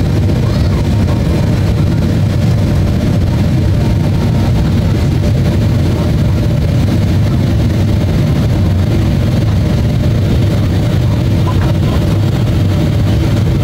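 Steady, deep cabin roar inside a Boeing 777-300ER descending on approach: the rush of airflow and the drone of its GE90-115B turbofan engines, heard from a seat near the wing.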